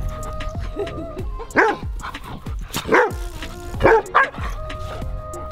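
Dogs at play, one barking about four times in short sharp barks, the last two close together, over background music with sustained tones.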